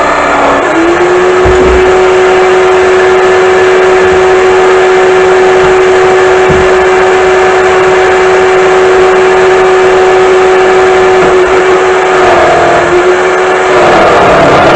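Black & Decker electric drill driving a D-994 lathe attachment, running with a steady high whine over a rough hiss. Its pitch dips briefly near the start and again about twelve seconds in.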